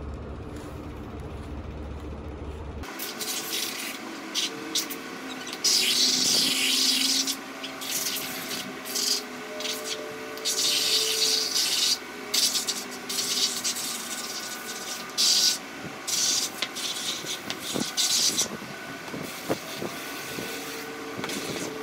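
Garden hose spray nozzle squirting water onto riding boots and gear on a concrete floor, in repeated hissing bursts of a second or two each, starting about three seconds in.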